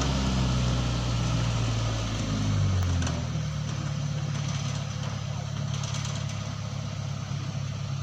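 Crane's engine running steadily, dropping to a lower, even idle about three seconds in.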